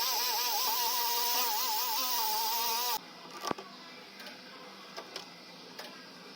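Background music with a wavering lead melody that cuts off suddenly about three seconds in, followed by a few faint clicks and knocks.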